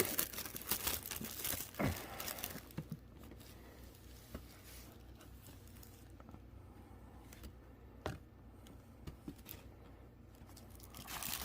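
Trading-card display box being opened by hand: crinkling and tearing of its packaging, busiest in the first couple of seconds, then faint rustles and a few sharp taps.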